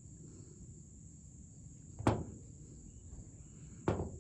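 Two sharp clicks, about two seconds apart, from door-handle and lock parts being handled, over a steady high-pitched tone in the background.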